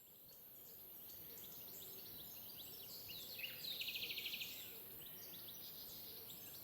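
Several birds calling and singing faintly, with many short chirps. About three and a half seconds in comes a rapid trill of quick, evenly repeated notes lasting about a second, the loudest part.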